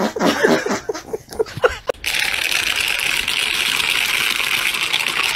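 A dog's quick run of short repeated sounds for about two seconds. Then, after a sudden switch, a steady crackling of a plastic bottle being worked at a dog's mouth until near the end.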